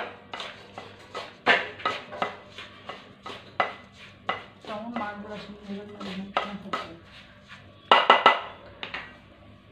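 Wooden spatula and hand stirring and scraping a crumbly semolina laddu mixture in a nonstick pan, giving irregular clicks, scrapes and knocks against the pan. A quick cluster of louder knocks comes about eight seconds in.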